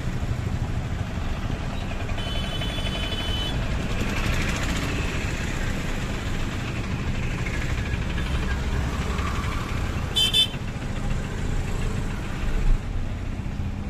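Steady engine and road rumble of a vehicle driving through town traffic. A horn sounds for about a second early on, and another vehicle gives a short toot about ten seconds in. A brief thump comes near the end.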